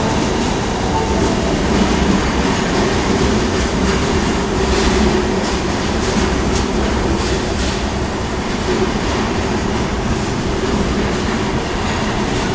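Osaka subway Tanimachi Line 22-series train running into the station platform. Its running noise holds steady throughout, with a run of wheel clicks over rail joints about four to seven seconds in.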